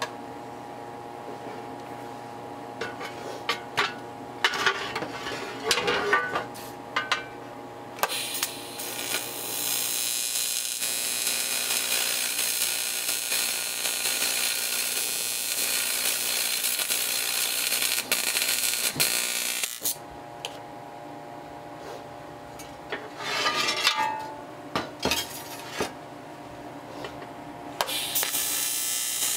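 TIG welding arc on a motorcycle fuel tank's gas cap, hissing steadily for about twelve seconds and starting again near the end. Between welds there are light clinks and taps of metal being handled.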